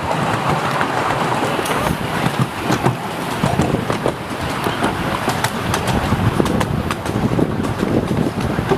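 A 7¼-inch-gauge miniature railway train running with passengers aboard: a steady rumble of carriage wheels on the rails with irregular clicks and knocks, and wind on the microphone.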